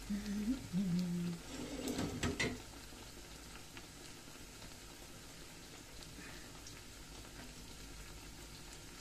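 Pestiños, strips of dough, deep-frying in hot oil in a pan: a steady fine sizzle and bubbling. A brief hummed voice sounds at the start, and a few sharp clicks come about two seconds in.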